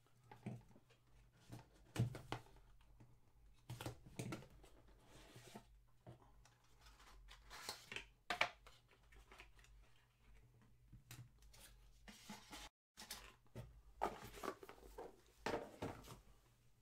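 Cardboard trading-card hobby box being opened and handled by hand: scattered faint taps, scrapes and rustles of cardboard and plastic, with a card in a hard plastic case set down near the end.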